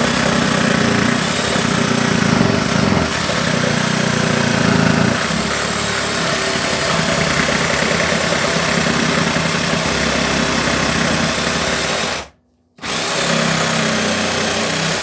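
Ryobi P516 18-volt cordless reciprocating saw cutting through thick laminated plywood and struggling under the load. The saw stops briefly about twelve seconds in, then starts cutting again.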